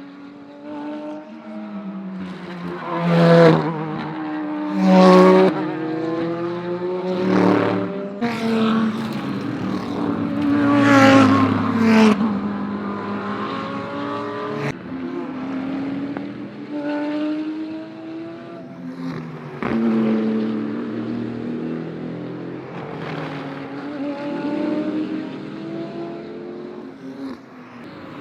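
GT3 race cars passing at racing speed one after another, their engine notes rising and falling in pitch as each goes by, with several loud passes.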